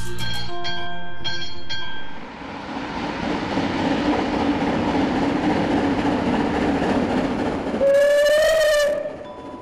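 A short musical jingle, then a steam locomotive hauling coaches runs closer with a steady rumble. It gives one whistle blast about a second long near the end, the loudest sound.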